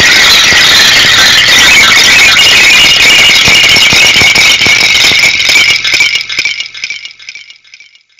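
Loud, dense wall of distorted noise from a noise-music recording, with no clear notes or beat. About six seconds in it breaks up into scattered crackles and dies away as the track ends.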